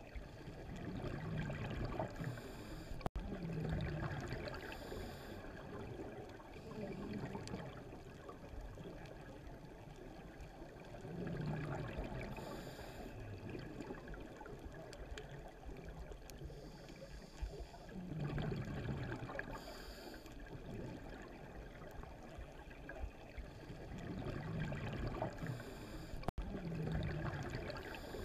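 Scuba diver breathing through a regulator underwater: bubbly, gurgling rushes of exhaled air come back about every seven seconds, with a steady water hiss between them.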